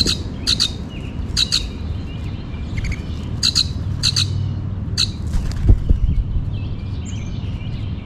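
Common grackle giving about seven short, sharp chack calls at irregular intervals, with fainter chirps of other birds behind. A low thump comes a little before six seconds in.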